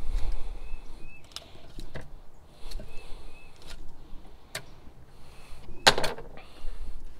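A fillet knife cutting along a bluegill on a glass cutting board: scattered sharp clicks and taps of the blade and fish against the glass, the loudest about six seconds in. Faint short chirps now and then.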